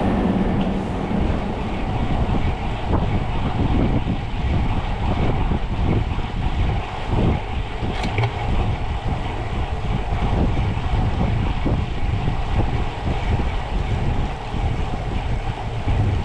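Wind buffeting the microphone with rolling tyre and road noise while riding a bicycle at speed in a group, steady throughout with gusty low rumbles.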